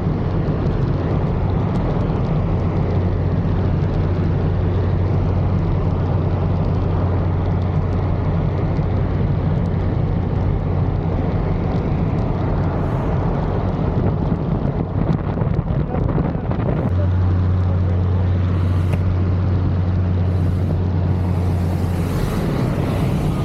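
Cessna Caravan turboprop's steady low propeller drone. Near the end the drone gives way to a rush of wind noise.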